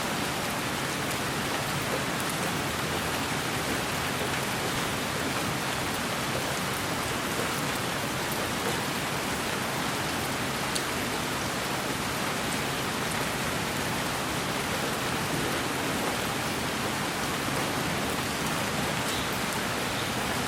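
Steady, even rainfall hiss, with faint scattered drop ticks.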